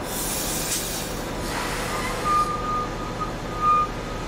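Rescue train (Hilfszug) rolling slowly past over a steady low running hum. There is a burst of air hiss in the first second and a half, then two short high-pitched squeals about a second and a half apart.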